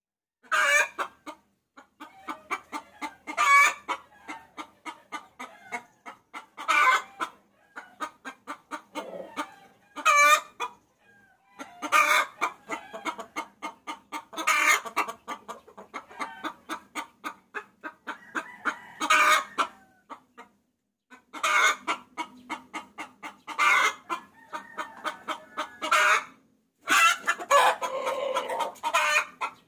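Hen cackling: quick runs of clucks broken every few seconds by a loud squawk, with a brief pause near the end. It is the hen's call used as a lure to draw roosters.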